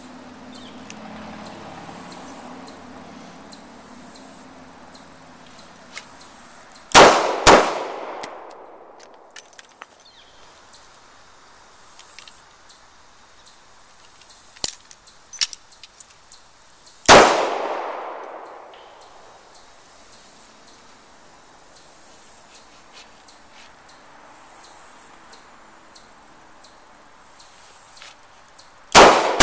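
Handgun shots fired on an outdoor range, each ringing out briefly: two in quick succession about seven seconds in, a single shot about ten seconds later, and another pair starting near the end. Faint clicks in between.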